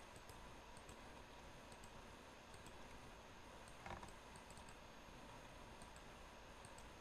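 Near silence: faint room tone with soft computer mouse clicks, one more distinct about four seconds in.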